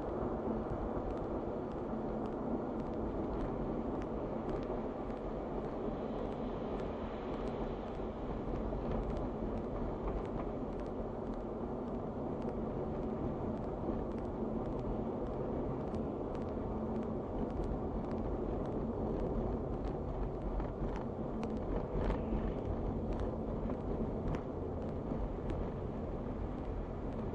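Steady road and tyre noise with engine hum, heard from inside a car driving on a slushy highway.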